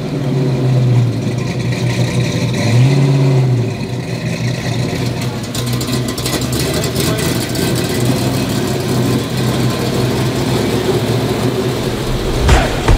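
A 1966 Mustang's fuel-injected 5.0 302 V8 running. It is revved briefly about three seconds in, then runs steadily.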